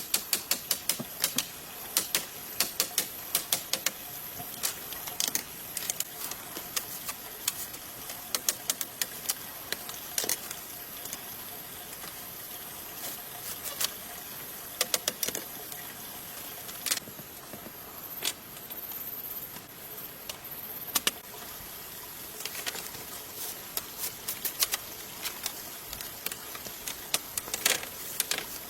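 Runs of sharp taps and knocks in irregular quick bursts, with pauses between them, over a steady faint hiss.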